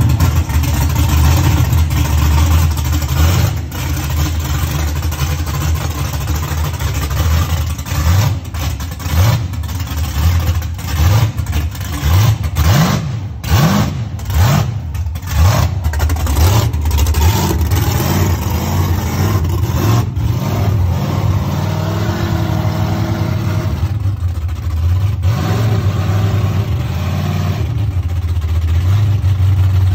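Chevrolet COPO Camaro drag car's V8 running loud, blipped up in a series of short revs through the middle, then settling to a steady idle as the car rolls out.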